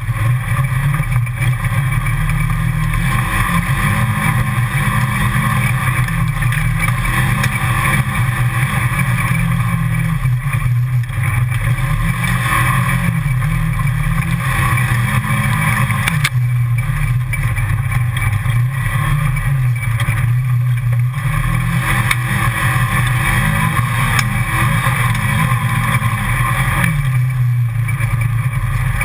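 Side-by-side UTV engine running as the vehicle drives along a rough trail, heard from on board. The engine note rises and falls with the throttle and eases off briefly about halfway through and again near the end.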